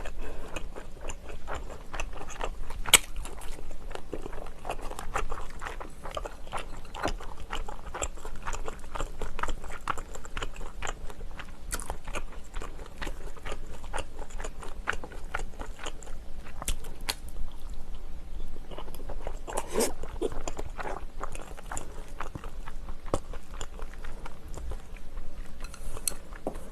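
A person chewing and biting food close to the microphone, mukbang-style, with many small irregular crunches and clicks. There is one sharp click about three seconds in.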